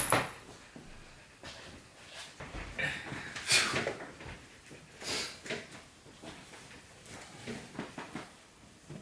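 A Samoyed rummaging through a pile of laundry on a bed: cloth rustling and shuffling in irregular bursts, the loudest about three and a half seconds in.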